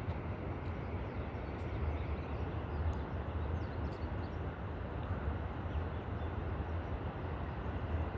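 Steady low rumbling, rushing noise with a few faint ticks.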